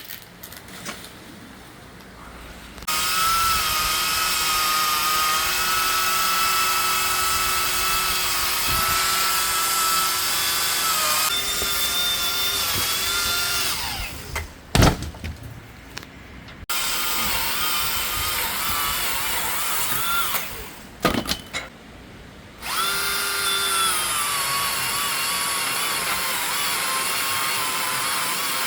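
Battery-powered electric chainsaw cutting wood, its motor whining steadily in three long runs with short pauses between.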